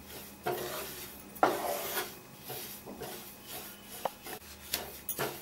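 Spatula scraping and stirring dry-roasting sesame seeds around a pan: a run of irregular scraping, rustling strokes as the seeds slide over the metal.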